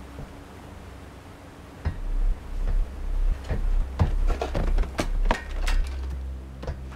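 Steady low drone of a patrol boat's engines. About two seconds in, a deep rumble swells up, and a string of sharp knocks and thuds follows, about a dozen over the next five seconds.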